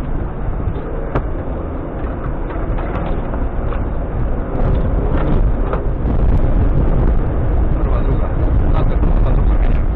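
Jeep Cherokee XJ driving off-road, heard from inside the cab: the engine runs under load over a rough dirt track, with scattered knocks and rattles from the body and suspension. It gets louder about halfway through.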